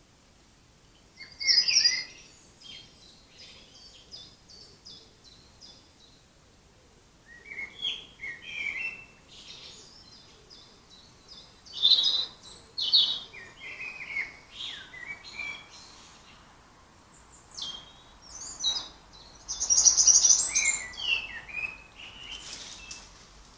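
Woodland songbirds singing: several bursts of quick, varied high chirping and warbling phrases, loudest about 2, 12 and 20 seconds in.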